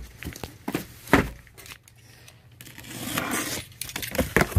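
Cardboard shipping boxes being handled on a table: a heavy thump as a box is set down about a second in, then scraping and rustling of cardboard, and a box cutter drawn along the packing tape near the end.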